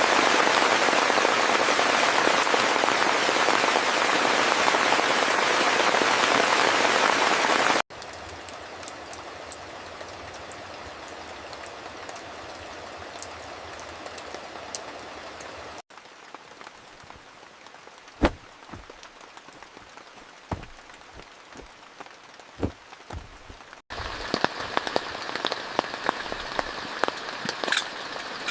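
Heavy rain in four abruptly cut stretches. First a loud, dense downpour for about eight seconds, then softer steady rain, then lighter rain with separate loud drips, then steady rain again.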